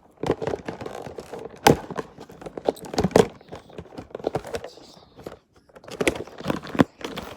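Hands fiddling with a toy to free a stuck part: a string of irregular clicks, taps and knocks, with a short quiet spell about five seconds in.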